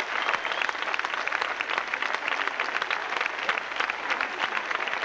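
Audience applauding: many hands clapping in a steady, dense stream.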